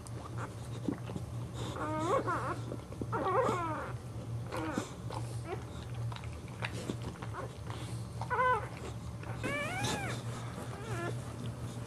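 Newborn Boxer puppy crying in several short, high, wavering mewing squeals, coming in pairs, over a low steady hum.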